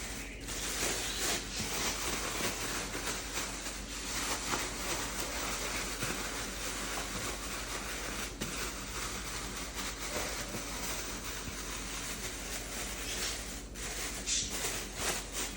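Plastic bag rustling and crackling as chicken wings are shaken around in seasoned flour, a continuous scrunching that stops abruptly near the end.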